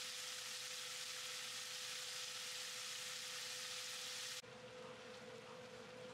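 Smoked duck slices sizzling in a frying pan, a loud even hiss that cuts off suddenly about four seconds in, leaving the quieter bubbling of a pot of boiling water, with a steady hum underneath.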